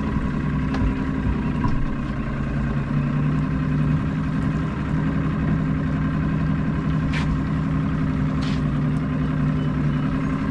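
Boat engine idling steadily, with two brief sharp noises about seven and eight and a half seconds in.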